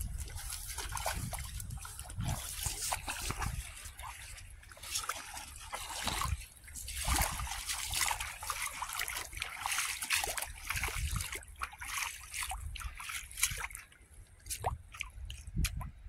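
Footsteps wading through shallow water over rippled sand, each step splashing and sloshing at an irregular pace.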